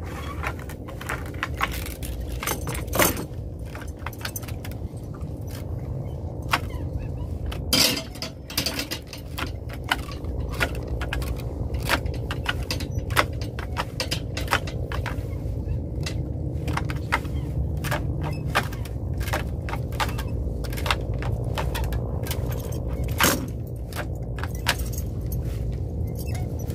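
Gill net running over the side of a fishing boat, its lead line and floats clicking and knocking irregularly against the hull, with a few louder knocks, over a steady low rumble.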